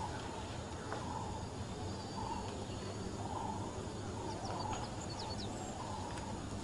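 Faint outdoor ambience with birds calling: short repeated calls throughout, and a few quick high chirps about four seconds in.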